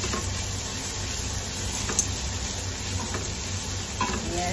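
Sliced red onion, ginger and lemongrass sizzling in hot oil in a stainless steel pot while a wooden spatula stirs them, with a sharp knock about two seconds in.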